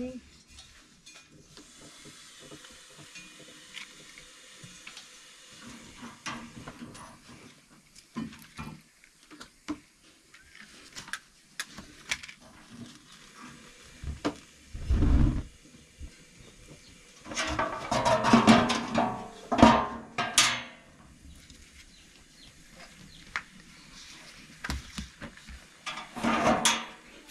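Bottled-gas ring burner under a bread griddle: gas hissing from the opened valve, then lit by a lighter about fourteen seconds in and catching with a low thump. Clicks and knocks of metal trays throughout, with louder clattering bursts around eighteen seconds and again near the end.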